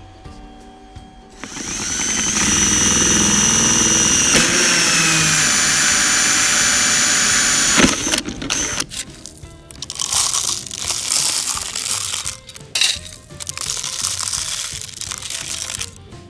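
Power drill running steadily for about six seconds while boring through the thin plastic bottoms of drink bottles. Its whine sags slightly in pitch, then it cuts off with a click. Irregular rustling and scraping follow.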